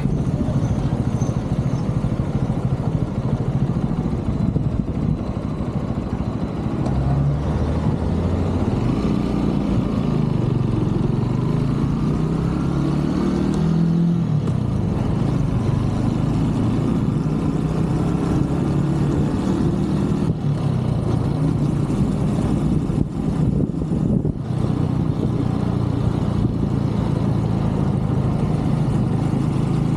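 A 125cc single-cylinder Brixton motorbike engine running while riding on the road. Its pitch climbs for several seconds, drops suddenly as the throttle eases or a gear changes, and then holds steady while cruising.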